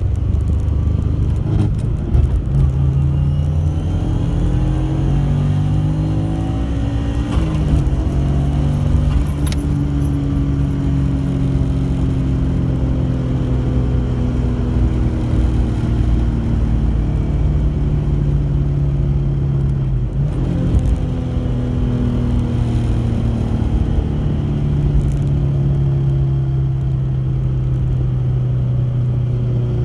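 Subaru Impreza wagon heard while driving: the engine and drivetrain note climbs with the revs, drops sharply about seven seconds in and again about twenty seconds in as gears change, then holds steady. This is the abnormal noise the owner is demonstrating.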